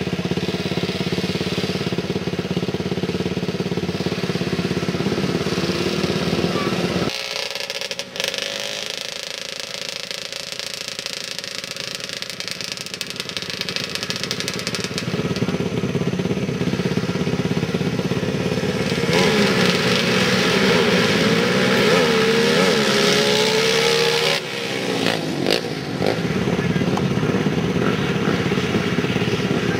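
Quad ATV engines running at high revs, with the revs rising and falling in repeated glides in the second half. The engine sound drops off sharply about seven seconds in and again near 24 seconds, then picks up.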